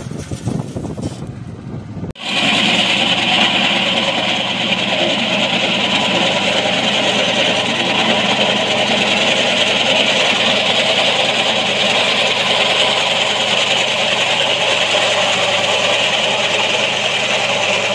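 Tractor engine rumbling unevenly for about two seconds, then a sudden switch to the louder, steady din of a Swaraj Code compact tractor running under load as it cuts through tall grass.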